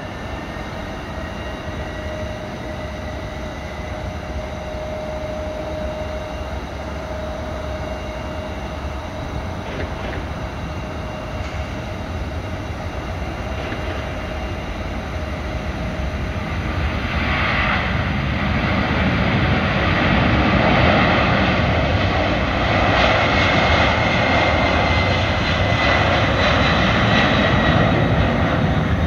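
Twin jet engines of a Boeing 767-300ER freighter on its takeoff run: a steady engine whine at first, then a little past halfway the sound swells into a much louder, broad rush of jet noise at takeoff power as the aircraft accelerates down the runway and lifts off.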